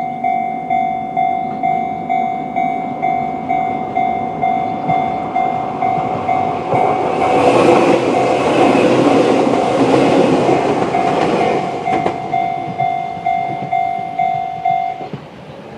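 Chichibu Railway level-crossing alarm ringing in its local 'Chichibu' tone, about two strokes a second, then stopping near the end. From about seven to twelve seconds in, a Chichibu Railway 7500 series electric train runs over the crossing, its wheels rumbling and clacking louder than the alarm.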